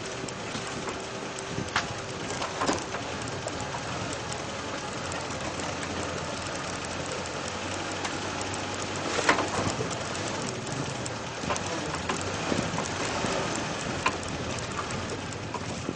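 Off-road vehicle creeping along a rough dirt track: a steady engine and road noise with scattered knocks and rattles, the loudest about nine seconds in.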